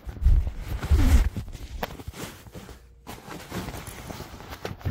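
Handling noise as a fabric travel tote is worked onto a suitcase's telescoping handle: rustling, knocks and clicks, with two heavy low thumps in the first second and a half.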